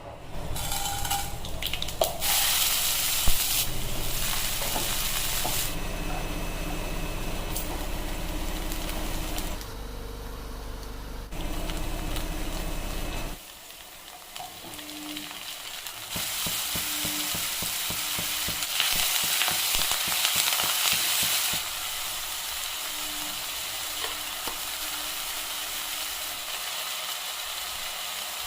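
Food sizzling as it fries in a pan while being stirred. The sizzle shifts in level several times, and there is one sharp knock about three seconds in.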